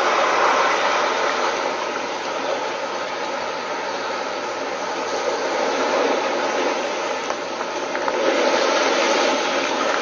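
Sea waves surging and splashing against a rock wall: a steady rushing noise that swells a little about eight seconds in.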